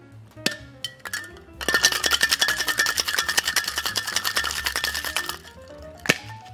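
Stainless-steel tin-on-tin cocktail shaker being shaken hard for about four seconds, a single ice cube rattling rapidly inside as it emulsifies a whole egg. A short knock comes before the shaking and a sharp knock on the tin near the end.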